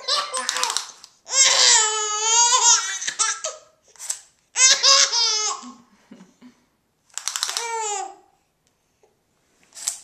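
A baby laughing in about five bouts, each a quick run of high-pitched laughs, with short pauses between.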